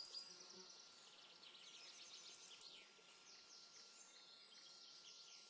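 Near silence with faint, rapid high-pitched chirping throughout, like a distant outdoor ambience of small birds or insects.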